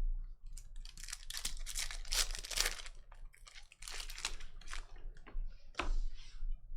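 Foil trading-card pack wrappers being torn open and crinkled: a run of irregular rustling and tearing sounds that dies away shortly before the end.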